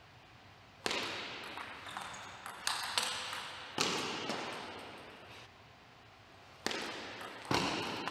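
Table tennis ball clicking off paddles and the table, a handful of sharp strikes spaced unevenly, each echoing in a large hall.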